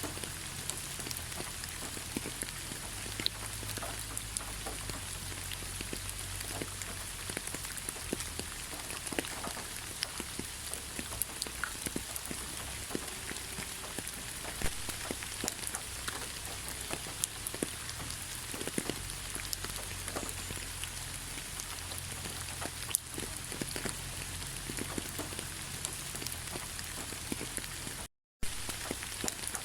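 Steady rain falling in a forest, a continuous hiss scattered with many separate drop ticks. The sound cuts out completely for a moment about 28 seconds in.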